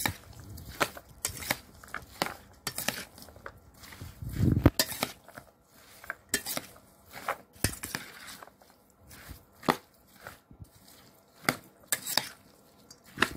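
Metal spoon stirring chopped fruit chaat in a stainless steel bowl, clinking and scraping against the bowl at an irregular pace of about one or two clinks a second. A louder, duller knock comes about four seconds in.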